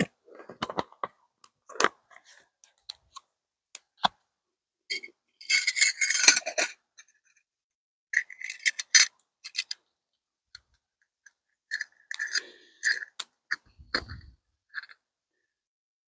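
Camp gear being handled: a plastic water bottle and a bag crinkle and scrape in bursts, with scattered clicks and metal clinks, and a dull thump near the end.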